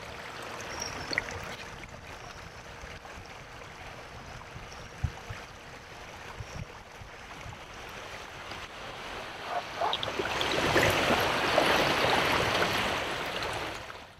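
River water running past a kayak, with a few small knocks about five seconds in; the rush of water grows much louder for the last few seconds.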